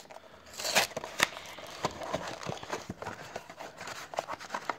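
Cardboard retail hanger box of baseball cards being torn open by hand: a run of sharp rips, scratches and clicks of the card stock, the loudest just under a second in and again a moment later.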